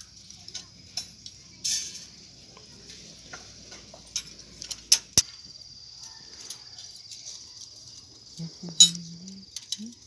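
Steel binding wire being twisted around rebar joints by hand, with scattered sharp metallic clicks and taps of wire against the steel bars.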